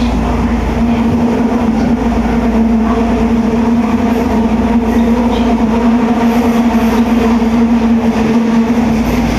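Running sound heard inside an Osaka Metro 70 series linear-motor subway car fitted with Hitachi GTO inverter control: a steady, held humming tone over the low rumble of the moving car.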